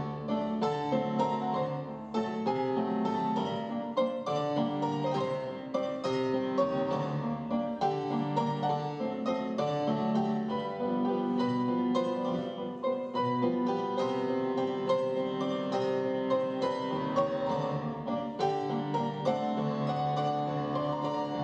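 Piano playing ballet barre accompaniment music, a steady flow of notes.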